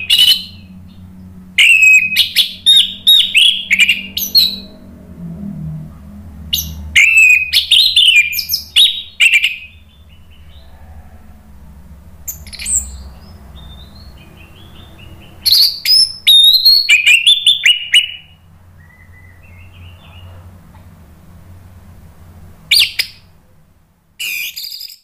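Orange-headed thrush singing: loud bouts of quick, varied phrases made of sweeping, falling high notes. There are about seven bouts, one every two to four seconds, with short pauses between them. A faint steady low hum runs underneath.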